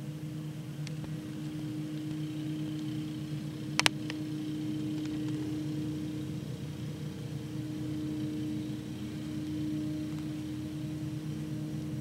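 Riding lawn mower engine running with a steady hum. A single sharp click a little under four seconds in.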